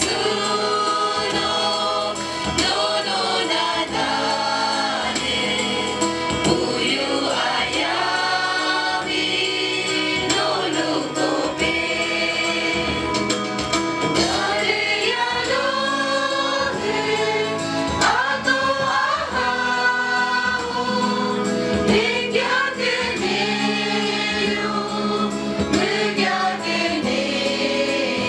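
Church choir singing a hymn.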